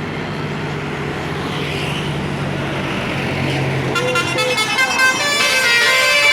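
A bus engine running, then about four seconds in a telolet Basuri musical horn starts playing a melody of stepped notes, getting louder toward the end.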